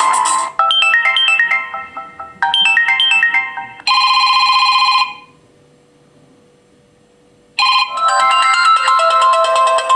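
Samsung Galaxy tablet stock ringtones playing: a short melodic phrase of bright electronic notes sounds twice, then a held chord, then about two seconds of near quiet before another ringtone melody starts.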